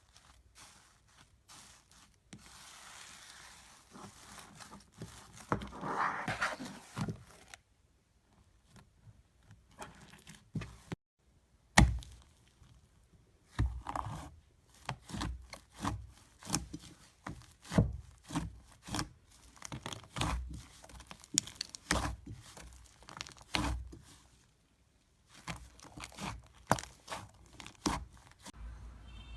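Slime being pressed and pulled apart by hand, giving sticky crackling and a run of short sharp pops and clicks, cut together from several short clips.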